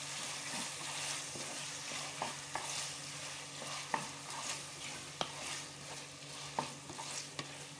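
Chopped tomatoes and onions frying in hot oil in a metal pressure-cooker pot, sizzling steadily while a wooden spatula stirs them, with scattered sharp taps and scrapes of the spatula against the pot.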